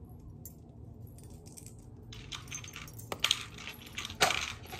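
Small beads and the bangles on her wrists clicking and clinking as beads are handled and threaded onto a bracelet cord. The first two seconds are quiet, then comes a run of sharp little clicks, loudest a little after three seconds and again just after four.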